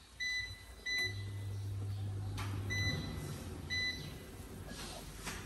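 Four short electronic beeps from a kitchen appliance's control panel, unevenly spaced, with a steady low hum running between the second and third beeps.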